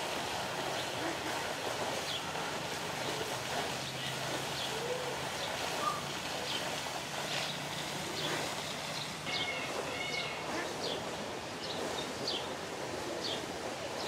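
Birds chirping in an aviary: short, high chirps repeat irregularly over a steady background hiss, with a brief warbled call about ten seconds in.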